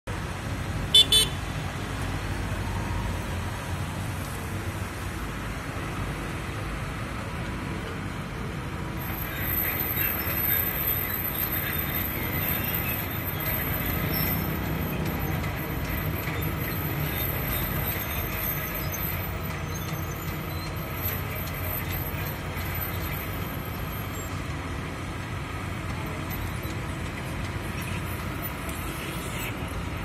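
Steady low rumble of a diesel engine: the amphibious excavator running as it moves on its pontoon tracks through the water. Two sharp clicks about a second in, and a faint high whine in the middle stretch.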